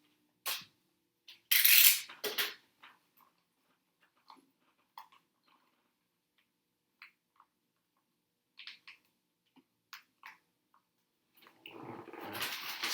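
Small parts being handled on a workbench: a couple of loud, brief clatters in the first two and a half seconds, then scattered faint clicks and taps, and a longer noisy stretch of handling near the end.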